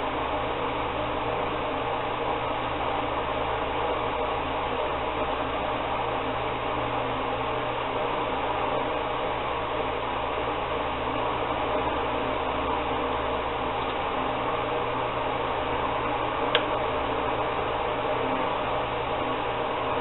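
Steady hum and hiss, even and unchanging, with one short click late on.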